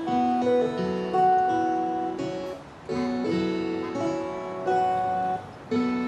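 Background instrumental music: an acoustic guitar playing a melody of plucked notes, a new note every half second or so.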